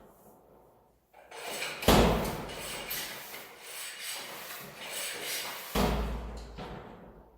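Rubbing and handling noise with two louder knocks, about two seconds in and about six seconds in.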